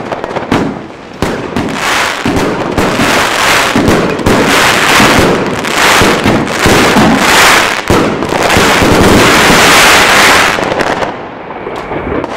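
Triplex TXB586 100-shot fireworks cake firing in rapid succession: shots and bursts run together into a dense, loud barrage that grows loudest in the middle, then stops abruptly about eleven seconds in as the cake finishes.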